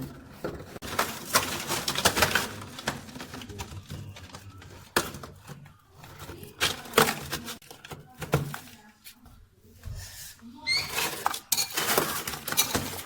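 Irregular knocks, clinks and scraping as chunks of loosened frost and ice are cleared out of a freezer compartment, with a brief high squeak near the end.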